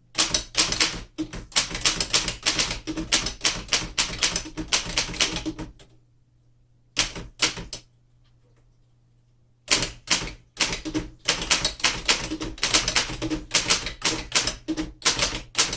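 1908 Remington Standard manual typewriter being typed on: rapid runs of sharp key and typebar strikes, with a pause of about four seconds in the middle broken by a few strokes before fast typing resumes.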